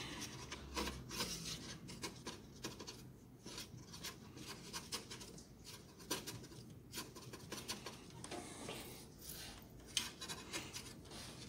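Faint scratchy rubbing of a cotton wad worked over the connector contacts of a TV circuit board, with scattered small clicks, cleaning off dirt that is making poor contact.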